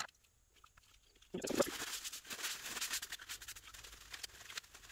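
Liquid splashing and dripping as a cast-iron block plane part is lifted out of a tub of rust-removal bath. It starts suddenly about a second and a half in, with small patters and drips, and then trails off.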